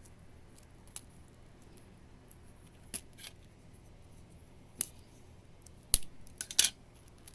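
Sticky tape being worked onto a ping pong ball: scattered short snips and crackles, the loudest about six seconds in, followed by a quick cluster of them.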